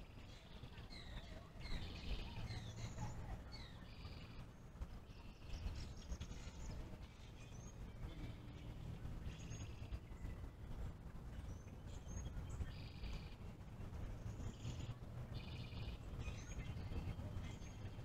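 Several small birds calling over and over: quick downward-slurred chirps and short rapid buzzy trills every few seconds. Under them runs a low steady rumble of distant road traffic.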